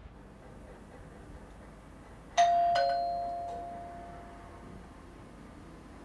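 Two-note "ding-dong" doorbell chime: a higher note, then a lower one, both ringing out and fading away. It sounds about two and a half seconds in.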